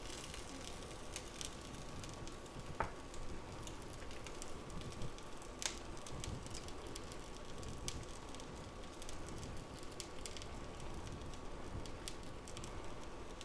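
Faint crackling sizzle of an egg breakfast pizza cooking in a non-stick skillet on low heat, with scattered soft ticks and pats as canned mushroom slices are dropped onto it. A faint steady hum runs underneath.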